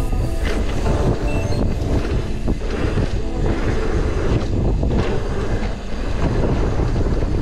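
A mountain bike running fast down a rough trail: a steady low rumble of wind buffeting the microphone, broken by frequent knocks and rattles as the bike hits bumps.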